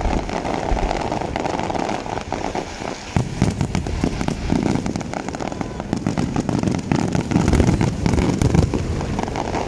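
Aerial fireworks display: shells bursting in a dense run of bangs and crackles, with the loudest bursts near the end.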